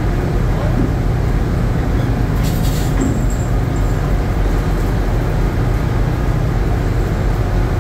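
Steady low drone of a fishing processor vessel's engines and deck machinery, with a brief hiss about two and a half seconds in.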